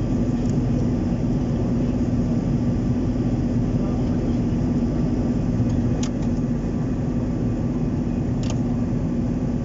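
Steady airliner cabin noise in flight: an even engine and airflow drone with a constant low hum. Two brief clicks, about six seconds in and near the end.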